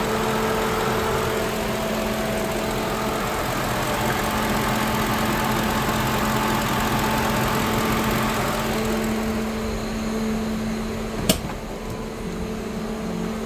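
Lincoln Town Car's 4.6-litre V8 idling with its newly replaced electric radiator fan running, a steady rush of air over the engine hum, the new fan running at the speed the worn-out one had no longer reached. The rushing eases about ten seconds in, and a single sharp click sounds soon after.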